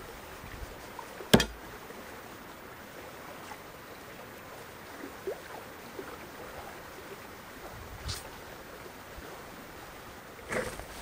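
A hatchet chopped into a birch log: one sharp, loud knock about a second in. Softer knocks follow about eight seconds in and near the end, over a steady outdoor hiss.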